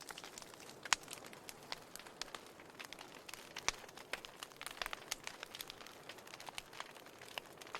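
Wood fire crackling in a fireplace: irregular sharp pops and snaps over a low steady hiss, with a louder pop about a second in.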